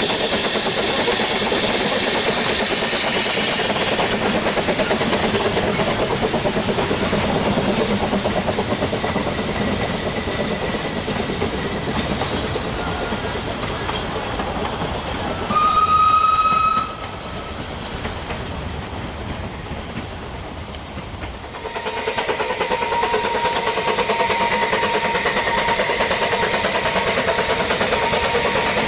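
Narrow-gauge steam locomotives working trains: a steady exhaust and the rattle of coaches passing, then a steam whistle blown once for about a second midway through. After a cut, another small steam locomotive approaches, working steadily.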